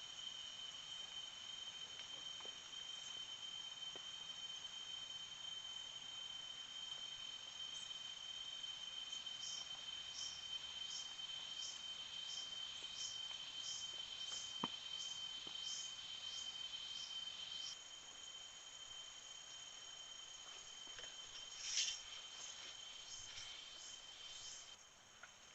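Insects calling in a forest: a steady high trill that cuts off suddenly about two-thirds of the way through, overlaid in the middle by higher chirps repeating about twice a second, then a short louder burst of chirping near the end.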